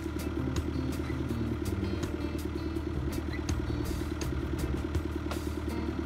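Diesel engine of a White Field Boss 2-60 tractor running steadily, with a fast, even pulse and scattered sharp clicks.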